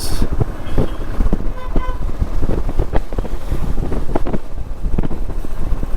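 Motorcycle on the move: engine rumble and wind noise on the microphone, with a short horn beep a little under two seconds in.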